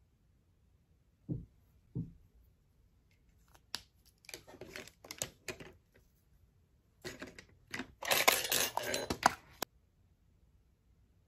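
Handling noise close to the microphone as hands work with makeup: two low thumps, then scratchy rustling and clicks in two spells, the second and louder about seven to nine and a half seconds in.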